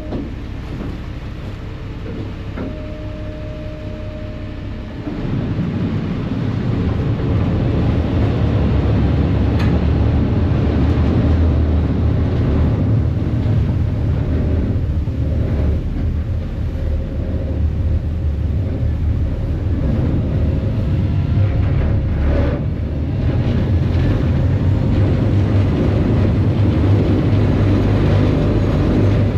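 Sydney harbour ferry's diesel engines running, a steady low rumble that grows louder about five seconds in as the ferry powers up and pulls away from the wharf.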